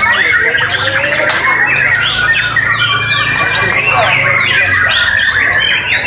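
Many white-rumped shamas (murai batu) singing at once. It is a loud, dense tangle of overlapping whistled phrases, rapid chirps and rising and falling trills.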